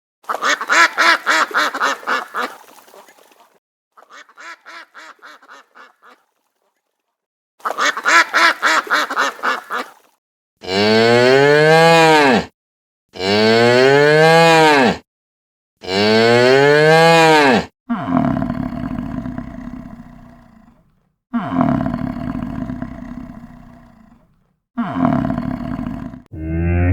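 Cows mooing: three long moos, each rising then falling in pitch, then several rougher, lower moos. Before them come a few shorter, rapidly pulsing animal calls.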